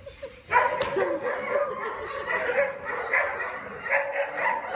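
Several dogs barking and yipping at once, their calls overlapping, starting suddenly about half a second in.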